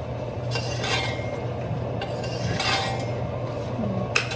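A utensil stirring onions in a pan of oil, scraping against the pan twice, with a sharp clink near the end, over a steady low hum.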